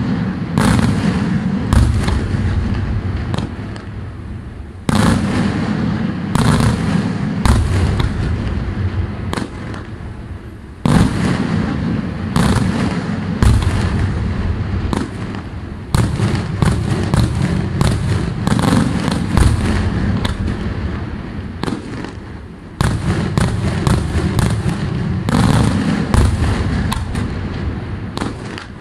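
Daytime fireworks display: a dense, continuous barrage of aerial shell bangs and cracks over a low rumble. Heavier salvos hit about every five or six seconds, each jumping up in loudness and then fading away.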